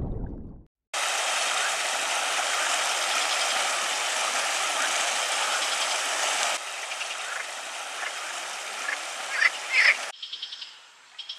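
Frogs calling outdoors: a dense, steady chorus hiss, with a few louder calls over it near the end. In the last second or so it gives way to closer, rapid pulsed frog trills.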